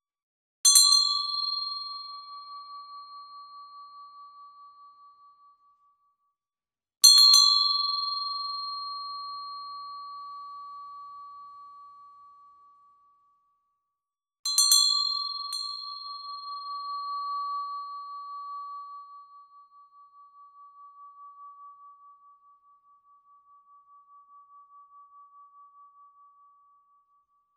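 A pull bell rung three times, about seven seconds apart. Each strike gives a sharp ding that settles into one clear, slowly fading note, and the last rings longest, its tone pulsing as it dies away.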